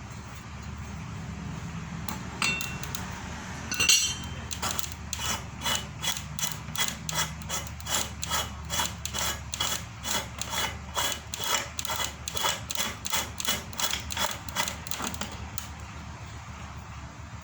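Metal parts of a size 32 meat grinder converted to a feed-pellet maker being worked by hand during assembly. There is a loud clank about four seconds in. Then comes a regular series of short metallic scraping strokes, about two to three a second for some ten seconds, which stop near the end.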